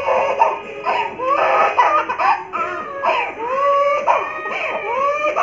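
Baby crying hard in repeated wails, some drawn out and rising in pitch, in distress while its earlobe is being pierced.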